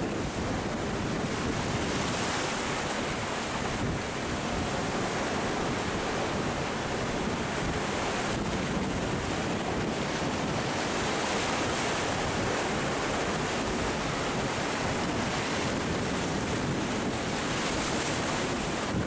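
Sea surf washing steadily against rocks, with wind buffeting the microphone.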